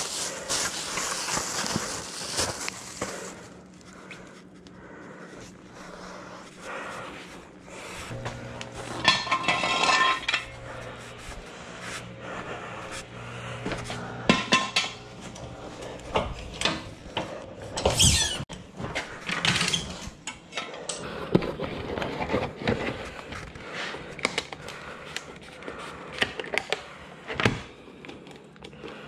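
A plastic bag crinkling at first, then scattered clinks, knocks and clatter as tools and plastic oil bottles are handled.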